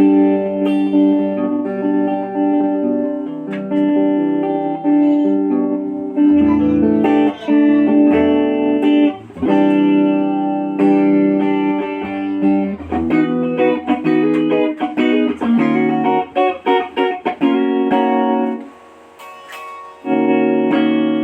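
Unbranded Telecaster-style electric guitar being played: ringing notes and chords, then a run of short, quickly picked notes, a brief drop to near quiet near the end, and chords again.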